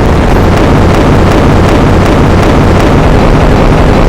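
Heavily distorted explosion sound effect: a loud, steady, bass-heavy rumble that keeps on without a break.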